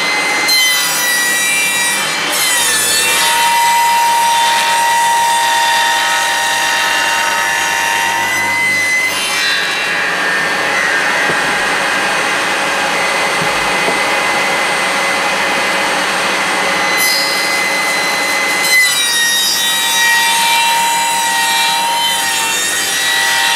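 Benchtop table saw running and cutting kerfs into a square timber post held on end against the fence. The motor's whine sags briefly twice, about two seconds in and again near the end, as the blade bites into the wood.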